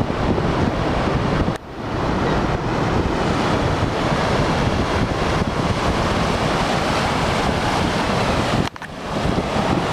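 Wind buffeting the microphone over the steady rush of breaking surf. The noise drops out briefly twice, about a second and a half in and near the end.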